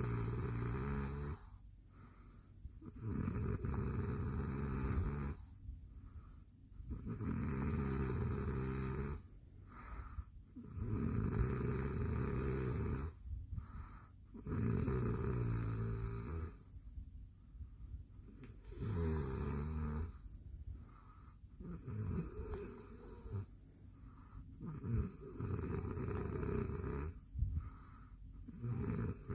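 A man snoring in his sleep: a steady run of rasping snores, one roughly every three and a half to four seconds, each lasting about two seconds.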